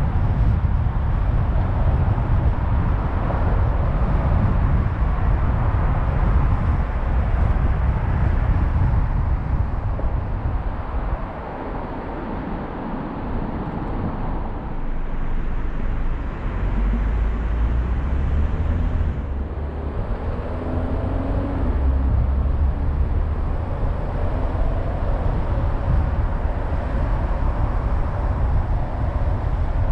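A car driving on a city road: steady low rumble of road and engine noise, which drops for a few seconds around the middle and then returns, with a faint engine tone in the second half.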